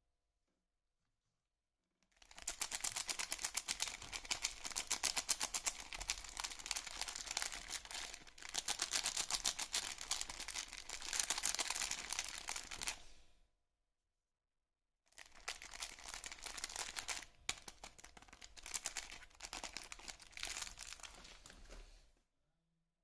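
Soap packaging crinkling and tearing as a bar of soap is unwrapped, in two long stretches of dense crackle: from about two seconds in to about thirteen seconds, then again from about fifteen to twenty-two seconds.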